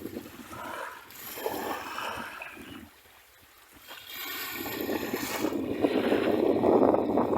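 Sea waves washing onto a beach. One wave surges in and drains away, there is a short lull about three seconds in, then a bigger wave builds and breaks near the end.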